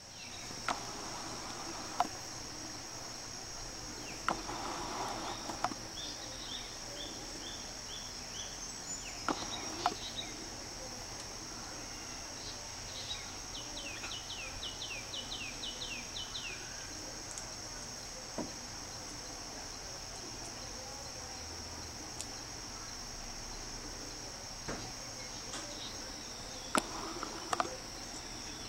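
A steady, high-pitched insect chorus. It is broken by two short runs of quick falling chirps and a few scattered clicks and knocks.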